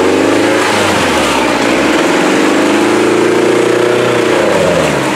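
Off-road trial buggy's engine revving hard under load as it claws through deep mud, its pitch dipping about a second in, climbing, then falling away near the end.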